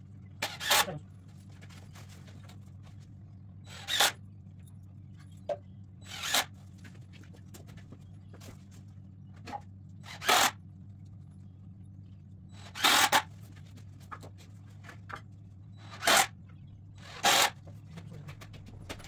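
About eight short, sharp bursts, a fraction of a second each and irregularly spaced, as the corners of a wooden board frame are fastened together. A steady low hum runs underneath.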